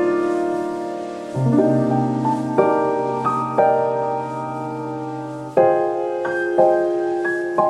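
Background music: soft piano, with chords and single notes struck about once a second and left to ring.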